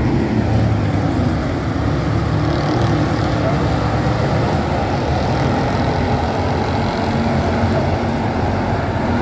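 A pack of dirt-track stock cars racing, their engines running loud and steady together.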